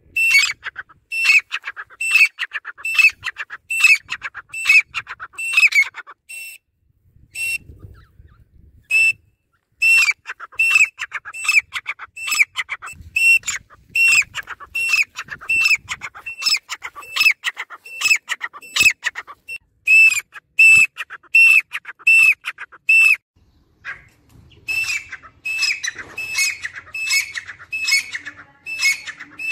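Grey francolin calling: a loud, fast series of short repeated high calls, about two a second, with a couple of brief pauses.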